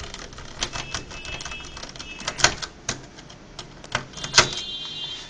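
Screwdriver working a small screw out of an HP 540 laptop's metal LCD hinge: irregular sharp clicks and taps of metal on metal, with a couple of brief thin squeaks.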